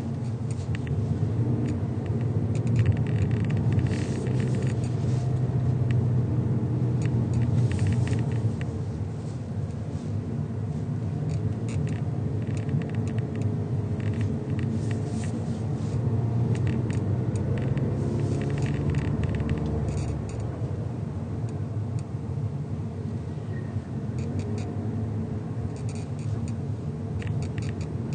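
Cabin noise of a 2022 Mazda3 on the move: a steady low road rumble, broken every few seconds by patches of light clicking rattles. The rattles are the abnormal noise the owner is recording.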